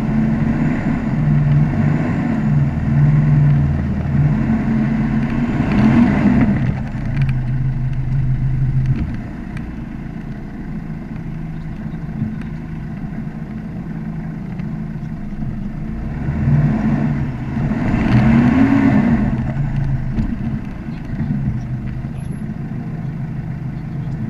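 A vehicle's engine running at low revs. It is revved up twice, about a quarter of the way in and again about three-quarters through, and idles more quietly in between.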